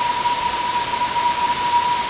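Waterfall rushing as a steady, even hiss, with a steady high whistling tone held over it.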